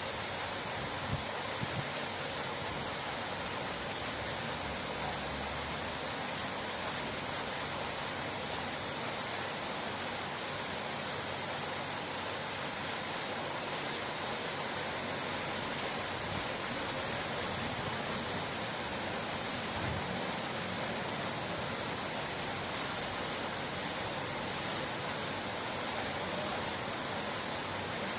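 Running water rushing steadily, an even hiss with no breaks.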